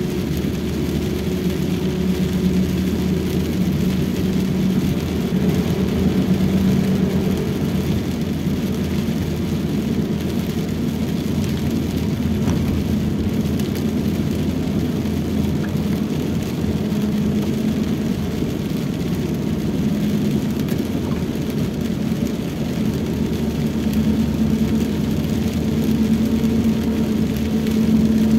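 Steady in-cabin drone of a Toyota Rush at road speed: engine hum and tyres on a wet road, with rain hissing on the car's body.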